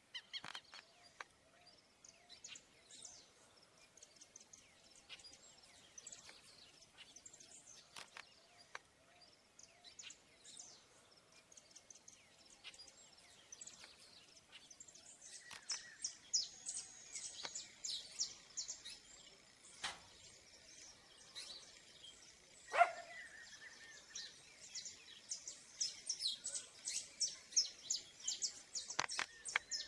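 Wild songbirds chirping and calling, a stream of short high notes that grows busier and louder in the second half, with one louder falling call about two-thirds of the way through.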